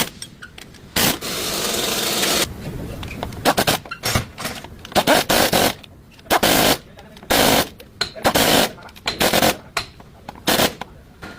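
Workshop tool noise during universal-joint replacement: about a dozen short, loud bursts at uneven spacing, with a steadier stretch of noise lasting about a second and a half near the start.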